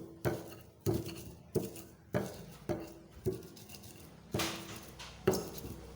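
Pestle pounding sugi-sugi leaves in a cobek mortar: about eight separate knocks, unevenly spaced and roughly one every half second to a second, each with a brief ringing tone, with a longer pause about three seconds in.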